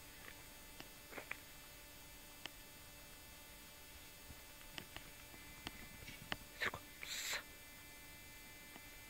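Dog moving about: scattered faint clicks and a short breathy rush about seven seconds in, over a steady low electrical hum.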